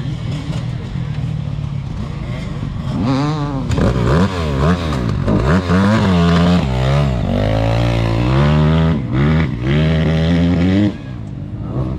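Enduro dirt bike engine idling, then from about three seconds in revved hard in quick rising and falling blips, with the note held high for stretches, before dropping away abruptly near the end.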